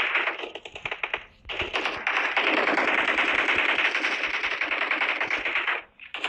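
Rapid automatic gunfire in long bursts: one burst stops about a second in, then a continuous run of about four seconds cuts off suddenly near the end.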